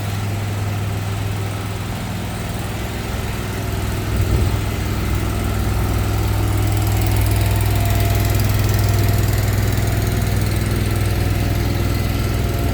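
A vehicle engine running steadily with a low hum, getting louder about four seconds in, over street noise.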